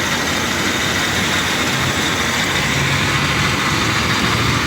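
1997 Chevy 2500 pickup's engine running steadily at idle, with a steady whir and hiss over a low hum.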